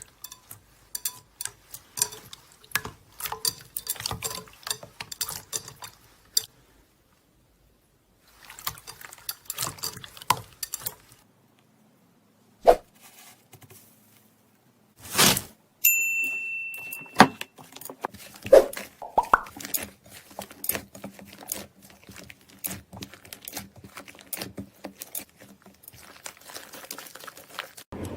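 Slime being squeezed and pressed by hand, giving dense runs of sticky clicks, pops and crackles. Several short clips follow one another with brief silences between them, and a short beep-like tone sounds about two-thirds of the way through.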